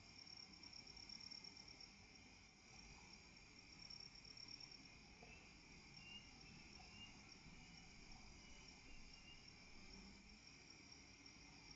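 Faint, steady chorus of crickets and other insects, a continuous high trilling. A few short higher chirps stand out from it midway through.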